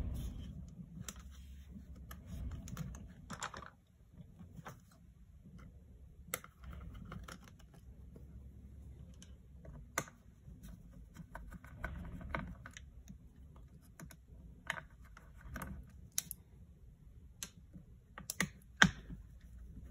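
Scattered light clicks, taps and brief scrapes from a small screwdriver and fingers working on the battery screws and battery inside an open MacBook Pro laptop. A sharp, louder click comes near the end.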